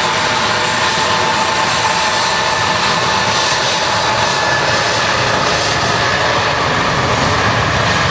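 Boeing 777-200ER's twin jet engines at takeoff thrust: a loud, steady jet noise with a whining tone that slowly drops in pitch.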